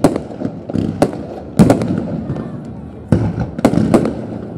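Fireworks display: aerial shells bursting with sharp bangs, about six in all, one at the very start, two more a second or so in, and a quick cluster of three near the end.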